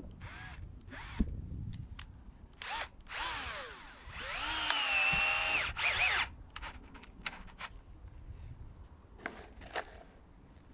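Cordless drill-driver working into wooden fence slats: a few short trigger bursts, then a longer run of about two seconds in the middle where the motor whine climbs, holds steady and slows under load, and a couple more short bursts near the end.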